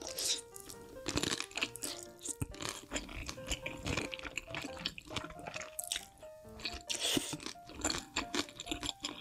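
Close-miked eating of creamy fettuccine alfredo: noodles forked in and chewed, with many short wet clicks and smacks of the mouth. Background music with short melodic notes plays under it.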